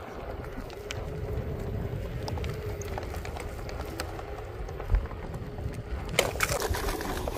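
Single-wheel electric board (Onewheel) rolling over asphalt: a steady low rumble with a faint motor whine in the first few seconds, a single thump about five seconds in, and a burst of crackling noise near the end.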